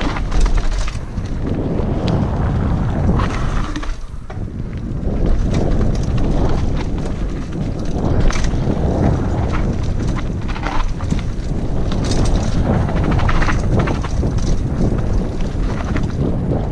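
Hardtail mountain bike running fast down a dirt trail, heard from a helmet-mounted action camera: heavy wind rumble on the microphone over tyre noise on dirt and leaves, with frequent knocks and rattles from the bike over bumps.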